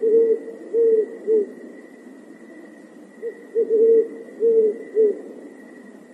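An owl hooting: a run of short, low hoots at the start, then a second run from about three seconds in, some notes drawn out and sagging slightly in pitch at the end.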